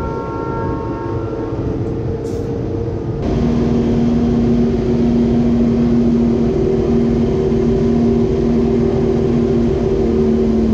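Honda Grand Prix racing motorcycle engine running at steady, held revs, a constant drone. It jumps louder about three seconds in.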